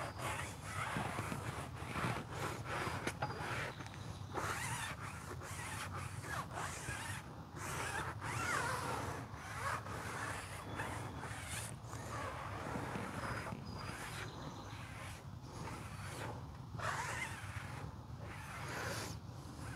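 Foam applicator pad rubbing tire dressing onto a rubber tire sidewall in repeated back-and-forth strokes, with some squeaking.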